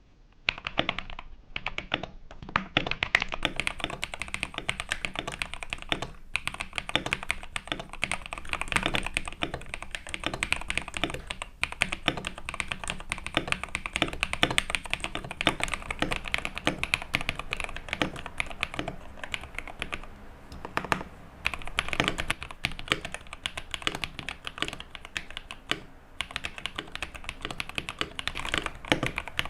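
Rapid typing on a modded KBD67 Lite mechanical keyboard in an ABS plastic case: a dense run of key presses, paused briefly a few times.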